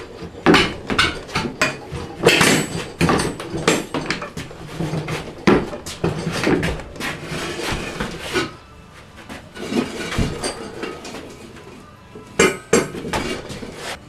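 Irregular metal clanking and scraping from a manual tire changer as a tire is worked off a steel wheel rim: many sharp knocks in quick succession, a quieter stretch about two-thirds through, then a few more clanks near the end.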